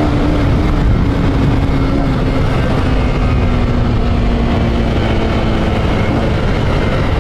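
Honda Titan 150's carburetted single-cylinder engine running on the move with its air filter and intake hose removed, which gives it a louder, more open intake sound. Its note sinks slowly in pitch over the first few seconds, with wind and road rush over it.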